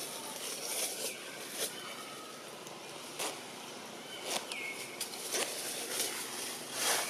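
Outdoor natural ambience with a few short, high chirping calls that glide downward, one of the clearest about four seconds in, and scattered sharp clicks or rustles.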